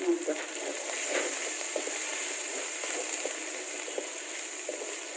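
Chilli spice paste frying in oil in a pot, a steady sizzle with short scraping sounds now and then, as the paste is sautéed with lemongrass and dried tamarind slices.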